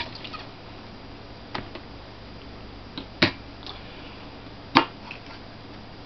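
A few sharp clicks and knocks from a laptop hard drive in its metal caddy being handled, the loudest a little past three seconds in, over a faint steady low hum.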